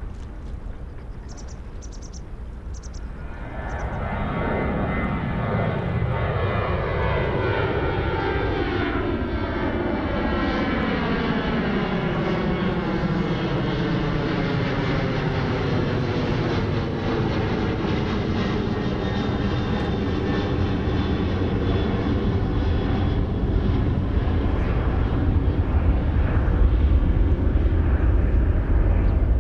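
Twin-engine jet airliner taking off and climbing out. Its engine noise swells about four seconds in and stays loud, with a whooshing sweep that falls steadily in pitch as the jet passes.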